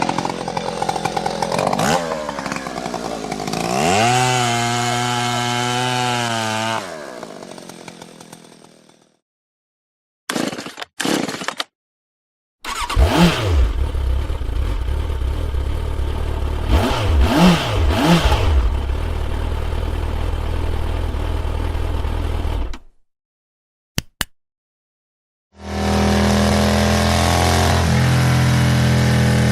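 Motorcycle engine in several separate clips broken by sudden silences: first a rev rising in pitch and then fading away, then two short bursts, then about ten seconds of running with quick throttle blips, and a steady idle over the last few seconds.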